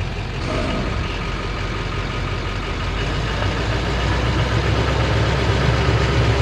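Chevrolet Silverado dually pickup's engine running as the truck pulls slowly forward with a fifth-wheel toy hauler hitched behind. The sound grows gradually louder.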